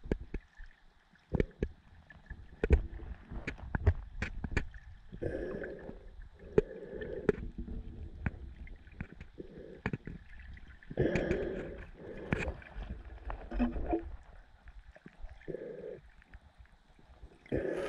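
Muffled underwater sound picked up by a camera held just below the surface: irregular water sloshing and gurgling against it, with many sharp clicks and knocks.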